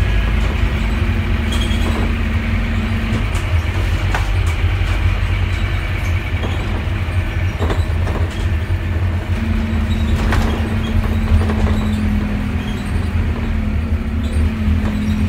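Inside a Scania OmniDekka double-decker bus on the move: the Scania N230UD's diesel engine and the road give a heavy low rumble, with a steady drone that drops away about three seconds in and returns after about nine seconds. A few short sharp rattles from the bodywork break through.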